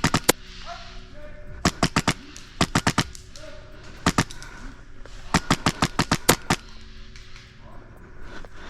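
Wolverine MTW Gen III HPA airsoft rifle firing in short rapid bursts of sharp cracks, about ten shots a second, five bursts in all, the last and longest of about nine shots.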